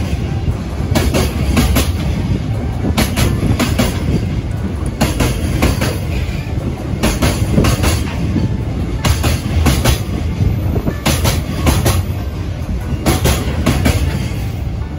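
A JR Freight container train's wagons rolling past close by: a steady rumble of steel wheels on the rails, broken about every two seconds by a quick group of clicks as each wagon's wheels cross a rail joint.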